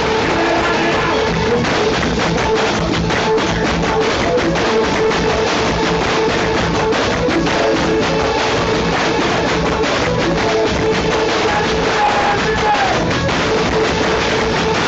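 Live band music played loud through a stage sound system, with drums keeping a steady beat under sustained melody.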